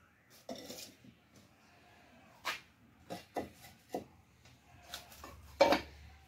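Terracotta flowerpots knocking and clinking against one another as they are lifted and set down. There are about six separate knocks, the loudest near the end.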